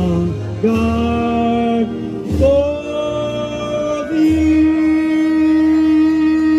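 A man singing into a microphone, amplified, in long held notes; the last note is held steady for about three seconds.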